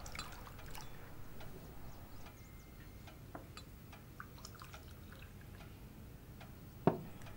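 Liqueur poured from a bottle into small crystal glasses: faint, irregular clicks and ticks of glass, with one short, louder knock near the end.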